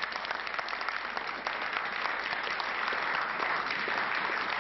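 Applause from a group of people: dense, steady clapping of many hands.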